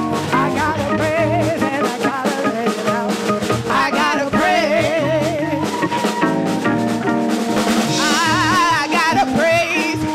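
Live gospel praise band playing an upbeat song with drum kit and keyboard chords, a singer's wavering vocal runs rising over it.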